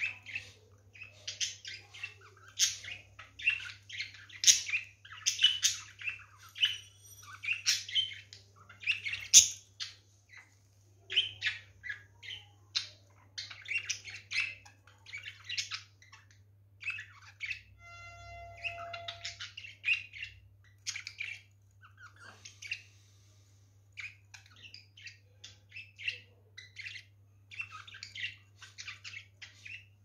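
Pet budgerigars chattering: quick runs of chirps, squeaky warbles and squawks, busiest in the first third and sparser later, with short pauses.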